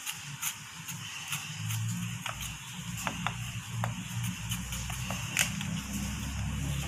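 Chef's knife mincing garlic on a cutting board: irregular knocks of the blade against the board, about one or two a second. A low hum runs underneath and grows louder near the end.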